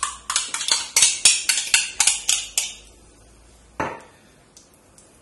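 A metal utensil clinking against a glass jam jar as jam is scooped out: about a dozen quick, sharp knocks over the first three seconds, then one more knock near four seconds in.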